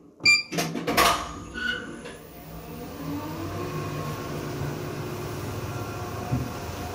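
Platform lift starting and running: a short beep and a few knocks in the first second, then the drive sets in with a steady low hum while the hold-to-run button is kept pressed, carrying the platform to floor 1.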